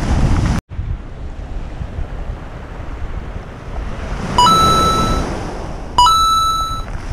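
Surf and wind buffeting the microphone, with a brief dropout to silence just after the start. About four seconds in, and again a second and a half later, a short two-note chime sounds: a quick lower note stepping up to a held higher one that fades.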